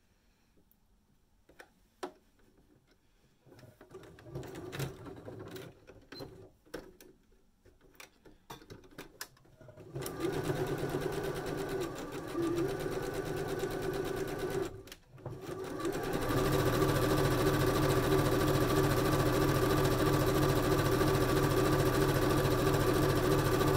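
Janome electric sewing machine top-stitching a folded fabric edge. A few light handling clicks come first. About ten seconds in the machine starts running, stops briefly about five seconds later, then runs on steadily and louder.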